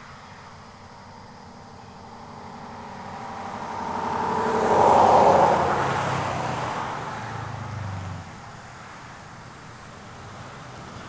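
A car passing by on the road: it grows louder from about two seconds in, is loudest about five seconds in, and fades away by about eight seconds in.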